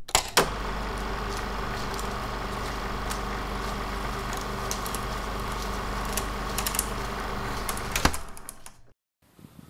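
Title-card sound effect: a steady mechanical rattle over a low hum, with scattered clicks and crackles. It starts with a sharp click, cuts off with another click about eight seconds in, then trails away to silence.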